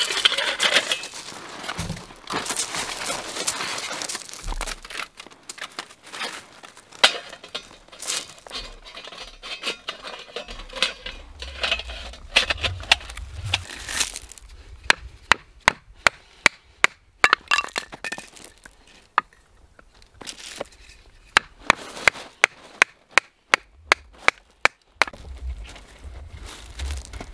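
Metal clinks and gravel crunching as a small folding metal firebox is set out on the ground. Then come two runs of sharp knocks, a few a second: a wooden baton striking the spine of a knife to split kindling.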